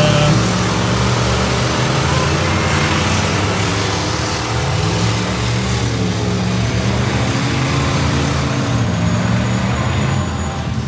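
Off-road truck engine running hard, its revs rising and falling, over a dense rush of noise.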